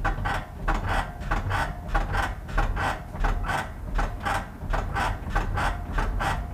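Honda Fit front suspension making loud, repeated clicks and creaks, about two to three a second in an even rhythm. The sound is a sign of a lower control arm under strain, which the mechanic suspects was not fitted level.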